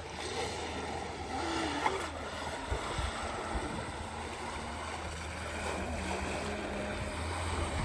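Radio-controlled jet boat running on water, a steady rushing wash of water and motor, with a few sharp knocks in the first half.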